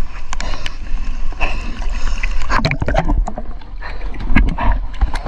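River water sloshing and splashing around an action camera held at the surface. A low rumble runs through it, broken by many short knocks and clicks as the water and housing move.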